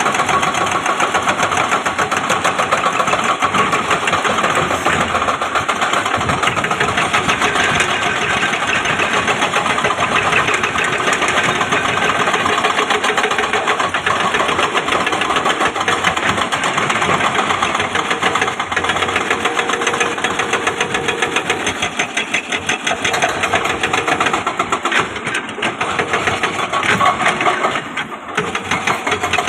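Excavator's diesel engine running steadily with a fast, even clatter, dipping briefly near the end.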